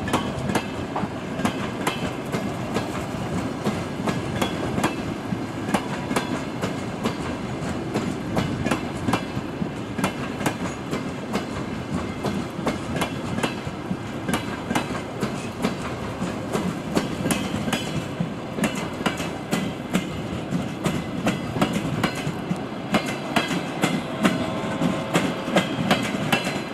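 Passenger coaches of a departing train rolling past, their wheels clicking over rail joints and switches in clickety-clack. The clicks come more often toward the end as the train picks up speed.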